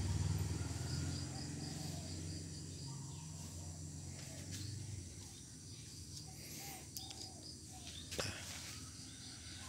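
Faint outdoor background: a high chirping repeated evenly throughout and a low hum that fades over the first few seconds, with one sharp click about eight seconds in.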